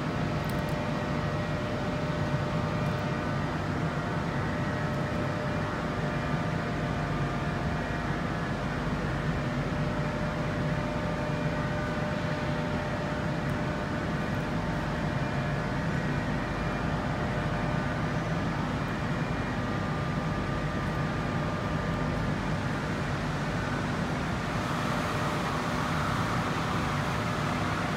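Steady machinery hum with several faint, steady whining tones over it, growing a little brighter near the end.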